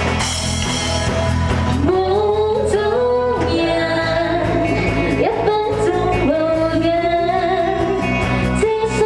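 Live band playing an upbeat rock-pop song on electric guitars, keyboard and drums. Vocals come in about two seconds in and carry the melody.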